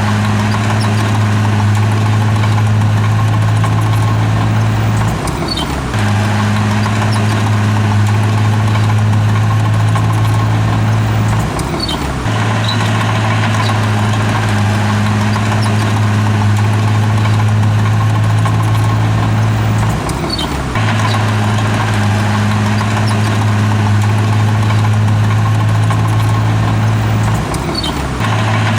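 Bulldozer's diesel engine running steadily under work, its note briefly dipping and sliding four times, about every six to eight seconds.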